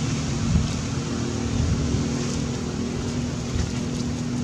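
A motor running steadily out of view: a low rumble with a constant hum, and a few faint light ticks above it.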